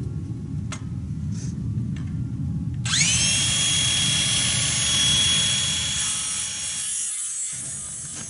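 Electric power tool motor spinning up about three seconds in with a quick rising whine. It then runs at a steady high pitch for about four seconds and tails off near the end.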